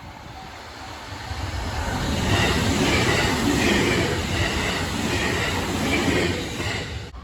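Level-crossing warning bell ringing in a steady repeating ding, then a train passing through the crossing. The train grows to a loud rush with a rhythmic clatter of wheels and cuts off suddenly near the end.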